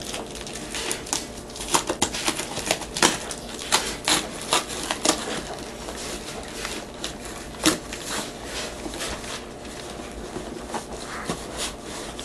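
A cardboard box being opened by hand: irregular sharp clicks and crackles of cardboard and packing being handled.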